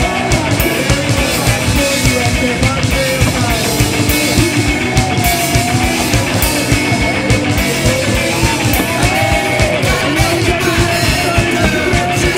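Rock music in a punk style with a steady, fast drum beat and singing.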